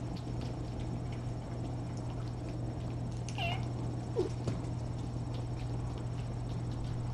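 A kitten gives one short high meow about three and a half seconds in, with a brief smaller squeak just after. Under it run a steady low hum and faint scattered ticks.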